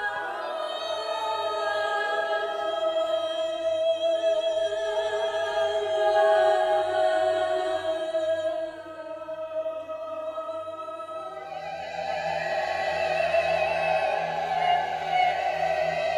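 A female solo voice and a mixed choir singing long sustained notes with vibrato, unaccompanied. About twelve seconds in, the massed voices thicken into a fuller, denser chord.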